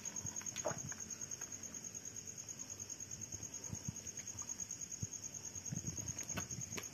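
Crickets trilling steadily in a rapid, even pulse, high-pitched, with faint soft knocks and rustles underneath.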